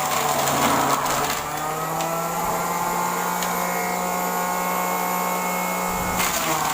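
Electric juicer motor running steadily with a whine, grinding carrot pieces briefly in the first second.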